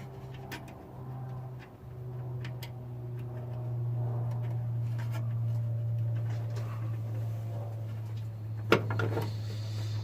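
Scattered light clicks and taps of tools and small metal hardware being handled while fitting a new starter solenoid, with one sharp knock near the end, over a steady low hum.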